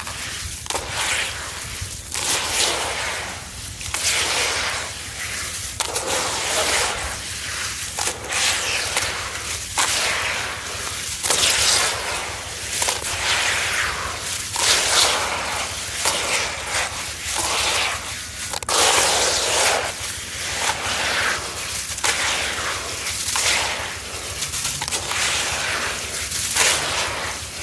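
Handfuls of wet, grainy sand-and-cement mix squeezed and crumbling, falling back into a tub in gritty, crunchy rushes about once a second.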